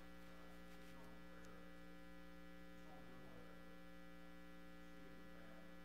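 Near silence: a steady electrical mains hum in the sound system, with faint off-mic voices now and then.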